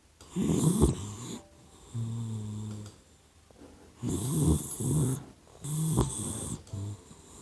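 Sleeping puppy snoring in uneven bursts, with a steadier humming snore about two seconds in.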